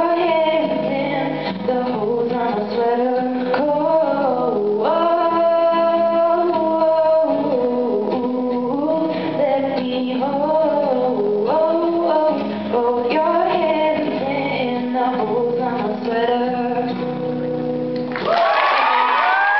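A young woman sings live to her own acoustic guitar, closing out the song. About 18 seconds in the music stops and audience applause and cheering break out.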